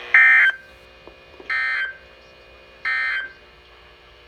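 Three short bursts of screeching SAME digital data tones from a NOAA Weather Radio receiver, about a second and a quarter apart, the first the loudest: the end-of-message code that closes the Required Weekly Test.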